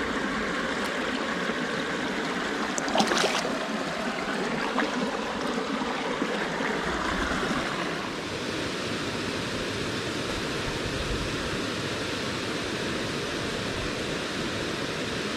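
Small stream's water rushing steadily over rocks, with one short sharp clatter about three seconds in.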